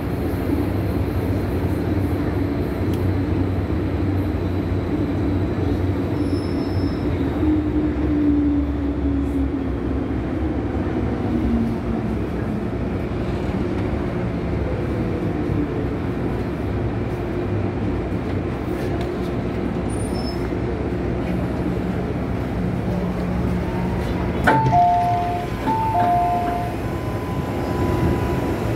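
MTR Island Line M-Train braking to a stop in a station: steady running noise with a whine falling in pitch as it slows. About 24 seconds in there is a knock as the doors release, then alternating two-tone beeps as the doors open.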